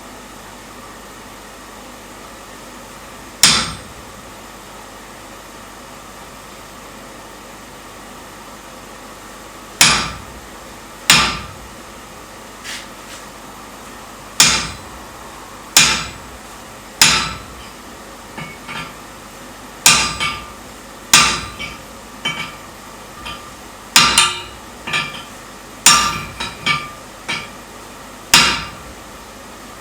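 Hand hammer striking steel on an anvil during forging: one blow, a pause of several seconds, then irregular blows about a second apart mixed with lighter taps. Each strike leaves a short metallic ring.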